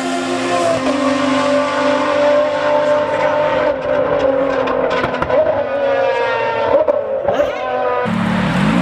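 Ferrari FXX's V12 at high revs, its pitch sliding slowly down as it passes and pulls away, with quick rises and falls in pitch around the middle. Near the end the sound cuts suddenly to a Ferrari F430's V8 revving at low speed.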